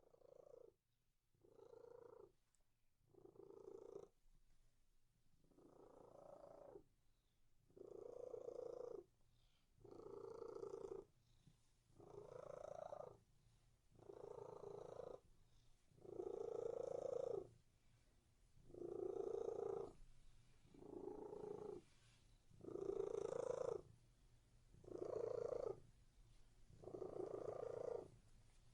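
Domestic cat purring in a steady rhythm of pulses about one every two seconds, faint at first and growing louder through the first half.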